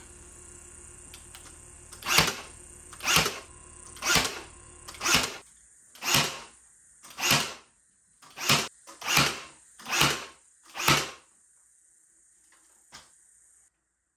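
Ten loud knocks about a second apart, over a steady hum that stops about five seconds in.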